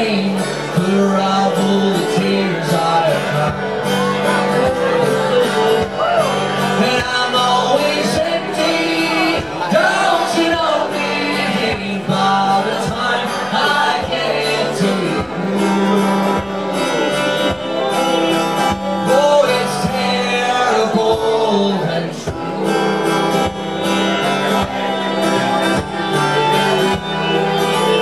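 Live acoustic country-folk music: a bowed fiddle and a strummed acoustic guitar keeping a steady beat, with a man singing.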